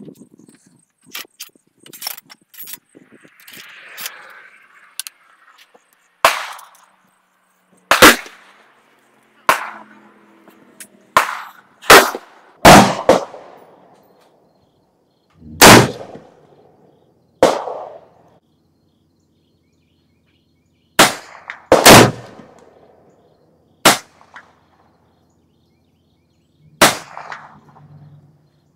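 A string of gunshots at an outdoor range: about a dozen sharp reports, each with a short echoing tail, irregularly spaced with some in quick pairs.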